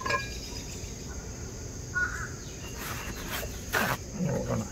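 Crickets chirring steadily in the background, with a short bird chirp about two seconds in and a few brief rustles and a short low call near the end.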